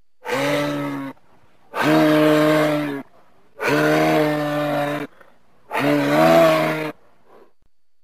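Moose calling: four drawn-out, nasal calls of about a second each, evenly spaced with short pauses between them.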